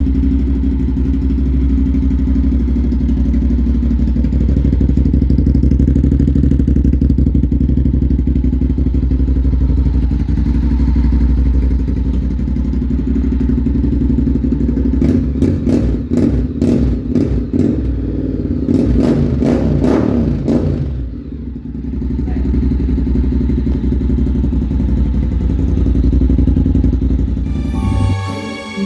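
Honda X-ADV 750's parallel-twin engine idling steadily through its exhaust, then revved in a quick series of throttle blips about halfway through before dropping back to idle. Music comes in near the end.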